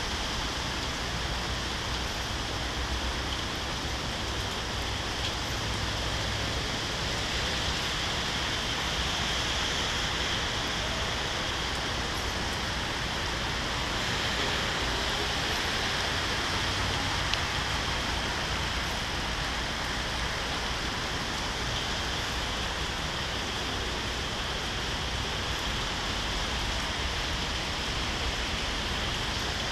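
Steady heavy rain, an even hiss that holds the same level throughout, with a low rumble beneath.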